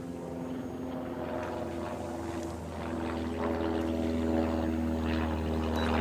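Electric motor and propeller of a small foam RC plane in flight, a steady whine that rises in pitch and grows louder about three seconds in.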